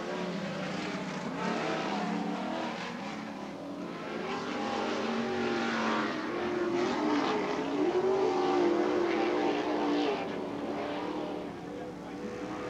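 Several short-course off-road racing trucks' engines running hard at once, their pitch rising and falling as the drivers accelerate and lift through the turns.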